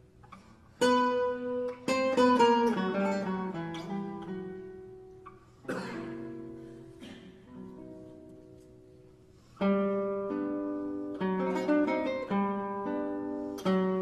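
Background music on acoustic guitar, with plucked notes and strummed chords that ring and fade. The playing is quieter between about four and nine seconds in, then a loud chord comes back in.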